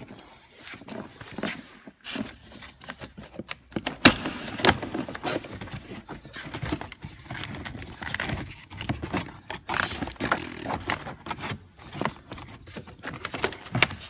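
Plastic door-sill and kick-panel trim being handled and pulled at by gloved hands: irregular scraping, rustling and clicks, with one sharp click about four seconds in.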